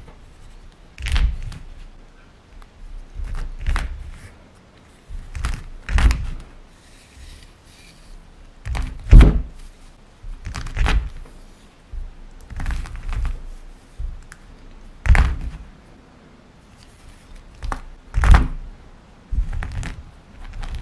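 Stone pestle striking and crushing a block of gym chalk in a stone mortar: a dozen or so thunks at irregular intervals, each with the crunch of chalk breaking, the loudest about nine seconds in.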